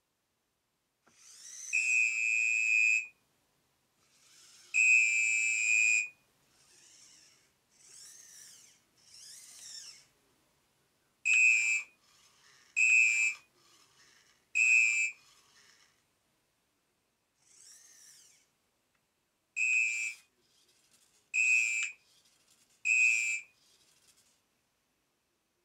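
Traffic-police whistle blasts played from a Robi humanoid robot's speaker as it gives traffic-control signals: two long, shrill blasts, then two sets of three short ones. Between the blasts comes the fainter whir of its servos as the arms move.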